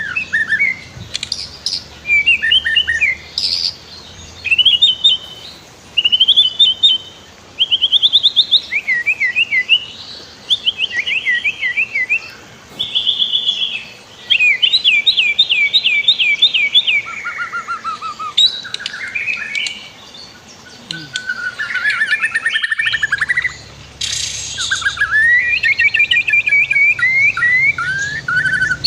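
White-rumped shama singing a long run of varied, rapid phrases: trills, repeated chips and sweeping whistles, one phrase after another with short pauses between them.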